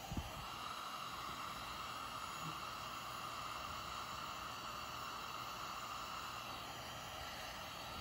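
Heat gun running, a steady blowing hiss of fan and hot air directed at the gel wax in the glass. A brief low thump right at the start.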